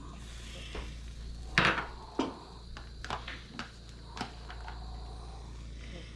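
A few irregular clacks and knocks of kitchen utensils and dishes, the loudest about a second and a half in.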